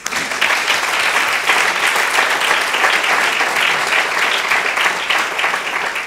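Audience applauding, a dense clapping that starts all at once and dies away near the end.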